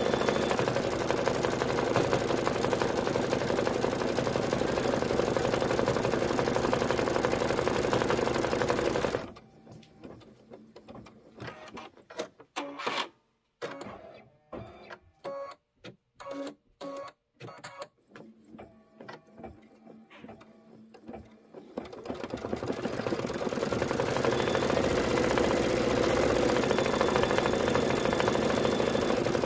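Embroidery machine stitching out lettering at speed, a steady fast run of needle strokes. About nine seconds in it drops suddenly to a quiet stretch of scattered clicks. About twelve seconds later it builds gradually back up to full stitching speed.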